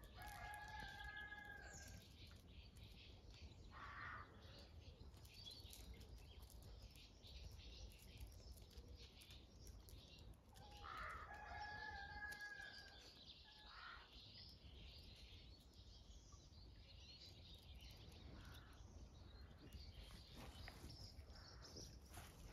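A rooster crowing faintly twice, a long held call right at the start and another about eleven seconds in, over quiet farmyard background.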